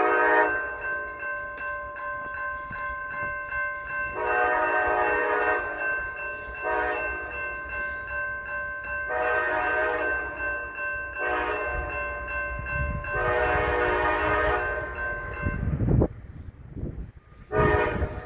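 A train horn sounding a string of blasts, several notes together: one short blast, then five longer ones, and another short blast near the end. A low rumble of the train swells toward the end.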